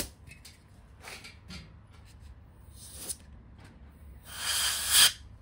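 A sharp click at the start and a few light handling taps, then a spray can hissing in one burst of about a second near the end as a dusty wiring-harness connector is sprayed clean.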